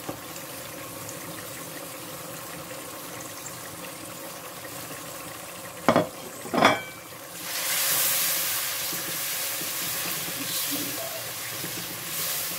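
Onions and spices frying in hot oil in a clay pot: a low steady sizzle, two sharp clicks about six seconds in, then from about seven and a half seconds a much louder hissing sizzle as the spices are stirred into the oil with a spatula.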